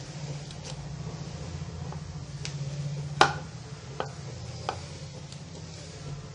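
A utensil stirring a crumbly flour, sugar and butter cake mixture in a mixing bowl, with a few sharp knocks against the bowl. The loudest knock comes about three seconds in, over a low steady hum.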